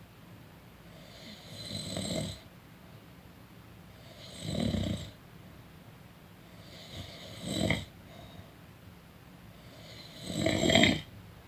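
A person snoring in sleep: four snores about three seconds apart, the last the loudest.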